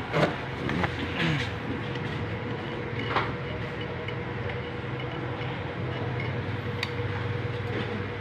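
Stick (arc) welding on a steel square tube: the arc's steady hiss over a low, even hum, with a few sharp clicks in the first three seconds.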